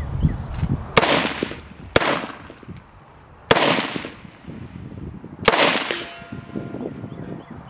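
IWI Galil ACE Gen II rifle in 7.62x39 fired four times in slow, aimed shots, the gaps about one, one and a half and two seconds. The last shot is followed by a ringing that fades.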